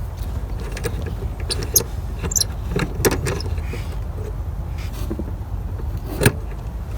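A few sharp, scattered clicks and taps of a hand tool on the 10 mm bolts of an air filter box cover, over a steady low rumble.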